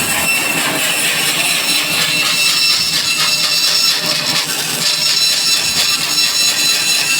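Power saw cutting wood: a steady high whine over rasping noise, running without a break.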